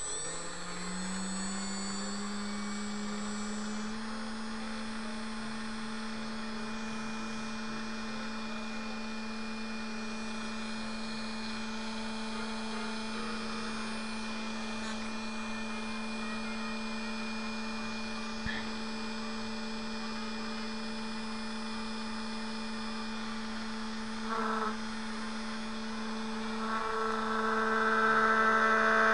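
Small brushless outrunner motor running on a wooden test plate for a balance check: its whine rises in pitch over the first few seconds as it spins up, then holds steady. Near the end it grows louder, with added higher tones.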